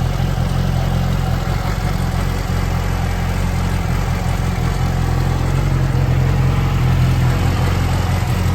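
2006 Yamaha R6's inline-four engine idling steadily while it warms up, breathing through the stock muffler box and an aftermarket slip-on silencer with the spark arrestor removed.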